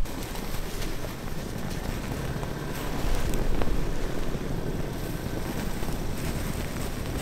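Ford Bronco's engine running as the truck creeps through deep snow, with tyres churning in the snow; it gets a little louder around three seconds in.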